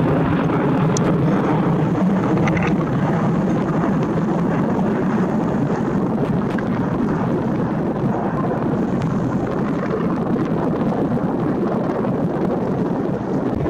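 Steady, loud roar of strong, gusty wind buffeting the microphone.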